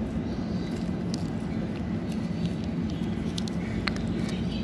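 Steady low background hum, with a few faint clicks.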